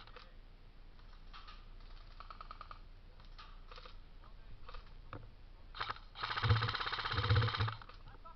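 Airsoft guns firing: a short rapid burst about two seconds in, a few single shots, then a loud, fast full-auto burst of about a second and a half near the end.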